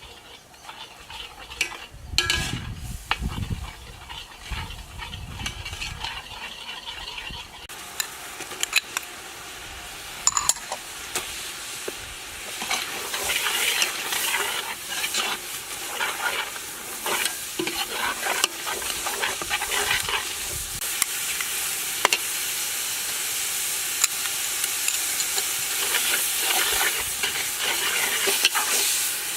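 Food frying in a pan, sizzling steadily while a utensil stirs and clicks against the pan. The sizzle grows louder after about eight seconds. A few dull thumps come in the first seconds.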